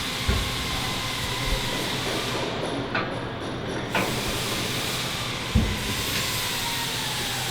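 Steady hissing workshop background noise with a few knocks and clunks of hand work on metal, the loudest a dull thump past the halfway mark.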